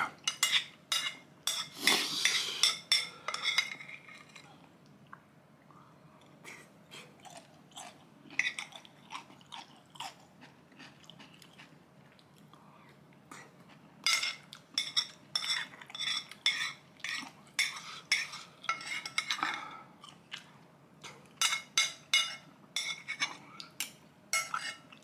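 Metal spoon clinking and scraping against a ceramic plate while curry is eaten, with chewing between. The quick clinks come in clusters at the start, again through the middle and near the end, with a quieter stretch of chewing between.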